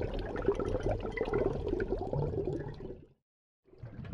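Bubbling, gurgling water, like air bubbles rising underwater. It cuts out suddenly for about half a second just after three seconds, then carries on.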